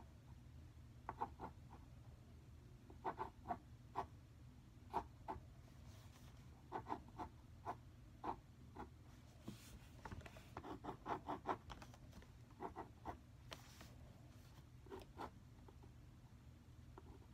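Felt-tip marker scratching and tapping on paper in quick, short strokes while drawing, coming in irregular clusters of small ticks and scrapes.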